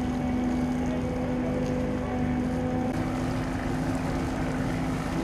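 Steady drone of a fishing boat's engine and deck machinery, with a constant low hum.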